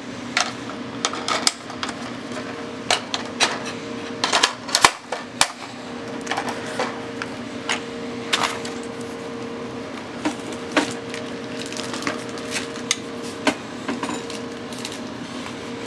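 Scattered sharp clicks and knocks of a 5.56 AR-15-style rifle and its magazine being handled as a 300 AAC Blackout cartridge is loaded into the magazine and the magazine is seated, with a busy run of clicks about four to five seconds in.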